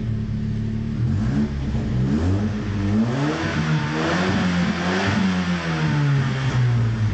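Alfa Romeo 75 engine idling, then revved once: the pitch climbs smoothly for about three seconds and sinks back to idle.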